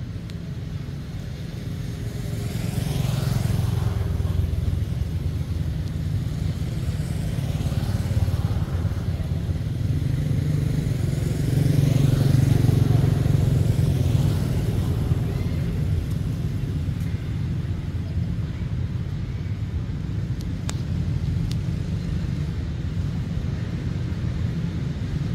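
A steady low rumble that swells twice, about three and twelve seconds in.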